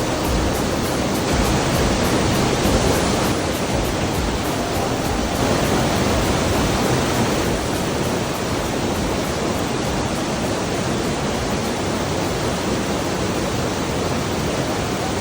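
Steady rushing roar of a waterfall in a canyon, even and unbroken.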